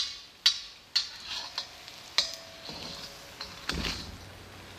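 Salt cod fritter deep-frying in hot oil in a wok, sizzling steadily. A metal skimmer clicks sharply against the wok several times, most often in the first two seconds.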